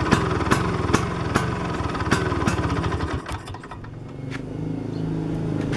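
Vespa two-stroke single-cylinder engine running on the contact-breaker wire alone joined to the ignition coil, with sharp clicks about two or three times a second. About three seconds in it dips and slows, then runs on with a steadier hum.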